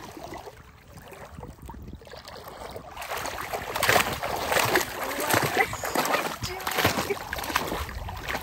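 Shallow seawater splashing as a golden retriever puppy hops through it and a person wades alongside. The splashing gets louder and busier about three seconds in.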